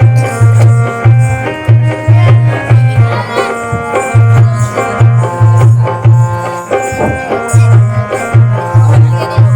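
Instrumental music of a song: a steady drum beat about twice a second under sustained chords, with the beat dropping out briefly twice.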